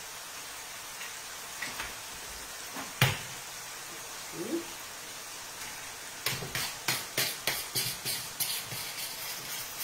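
An egg cracked sharply against the rim of the bowl about three seconds in, then from about six seconds hands kneading a moist minced-meat, egg and cheese filling in the bowl, a quick irregular run of soft wet squishing, three or four a second.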